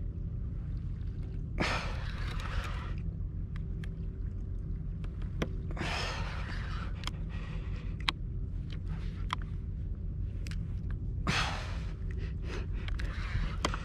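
A man breathing hard from the strain of fighting a big fish on rod and reel: three long, heavy breaths about four to five seconds apart. Under them runs a steady low rumble, with scattered small clicks.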